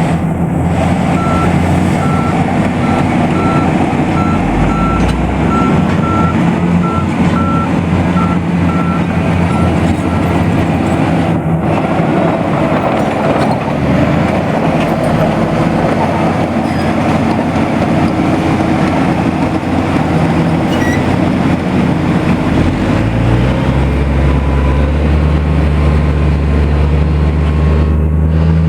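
BELAZ off-highway dump truck's diesel engine running loudly, with a reversing alarm beeping at a steady even rate for the first ten seconds or so. About 23 seconds in the engine note changes and grows stronger and steadier.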